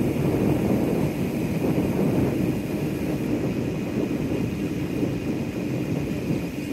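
Steady low rushing of wind on the microphone while moving, even and unbroken.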